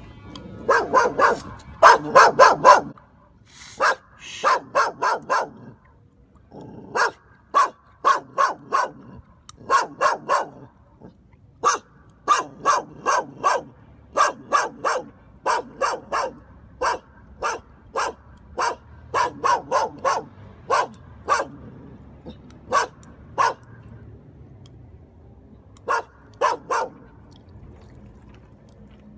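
A puppy gnawing on a dog chew: loud, sharp crunching bites in quick runs of three to five, with short pauses between runs.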